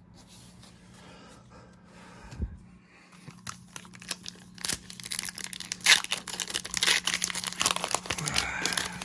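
Foil wrapper of a Pokémon trading-card booster pack crinkling and tearing open, a run of dense crackles starting a few seconds in.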